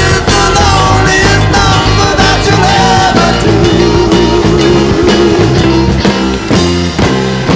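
Loud rock music with a steady drum beat and guitar; a wavering held note sounds through the middle.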